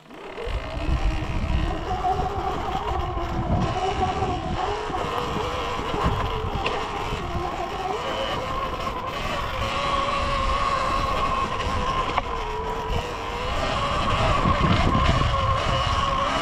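Surron Ultra Bee electric dirt bike riding on a trail: the electric motor's whine drifts up and down in pitch with throttle and speed, over a steady low rumble. It starts about half a second in after a brief quiet moment.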